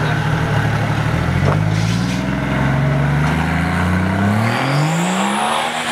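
Old Chevrolet C10 pickup's engine running at low revs, then revving up as the truck pulls away, its pitch rising over the last couple of seconds.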